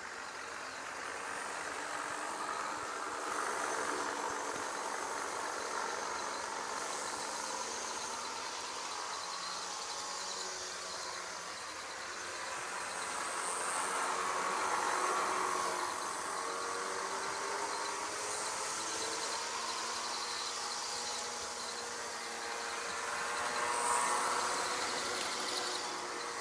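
Model Virgin train running around its track: its small electric motor whirring steadily along with the wheels on the rails, swelling louder several times as it passes close.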